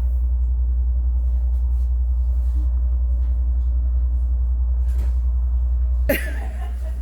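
Steady low rumble of the heritage excursion train running, heard from inside the passenger car. About six seconds in, a sudden sharp noise cuts in and the rumble drops.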